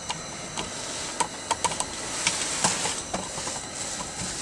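A steady hiss with a scattering of light clicks and knocks, most of them between about one and three and a half seconds in.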